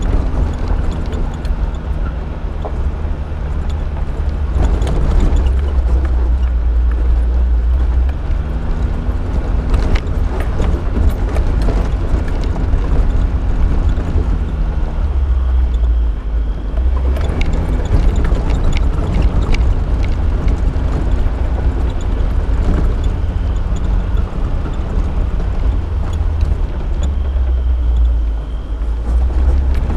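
Suzuki SJ413's 1.3-litre four-cylinder engine running as the vehicle drives along a rough dirt trail, with a deep rumble and engine pitch rising and falling. Scattered knocks and rattles from the body and the rough track are heard throughout.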